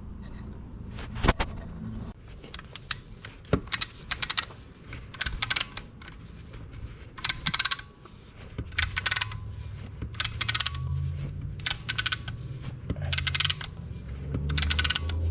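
Small hard parts and hand tools clinking and clattering in short rattling bursts, a cluster every second or so, as old brake pads and tools are handled and set down.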